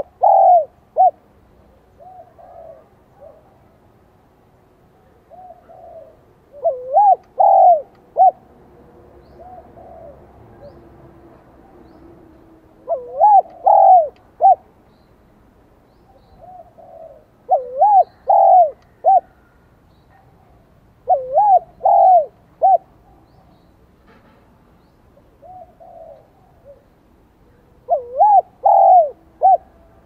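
Spotted dove cooing: six loud phrases of three or four short coo notes, spaced about five to seven seconds apart, with fainter coo phrases between them. A male in a high-pitched 'son' voice, used as a decoy to call in wild doves.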